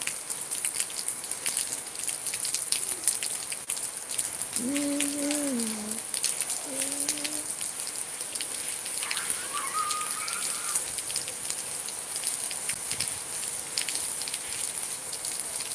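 Rain falling steadily on roofs and ground, a constant hiss thick with the crackle of drops. Faint distant calls rise above it about five seconds in and again around ten seconds.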